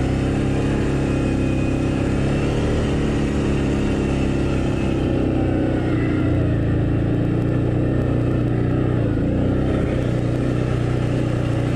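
Can-Am Outlander ATV engine running steadily as the quad climbs a rocky trail, its pitch rising and falling a little.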